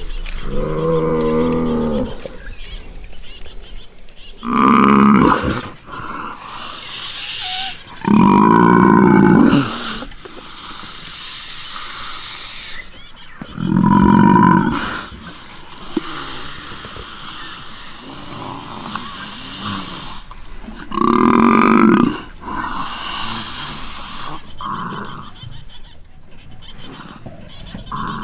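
Lions and a Cape buffalo at a kill: five loud, drawn-out calls, each about a second long, the buffalo bellowing in distress among the lions growling as they pull it down and feed.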